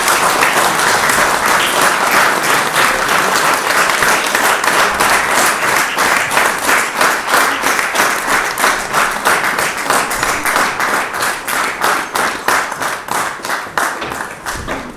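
Church congregation applauding, the clapping falling into a steady rhythmic unison beat of about three claps a second in the second half and dying away near the end.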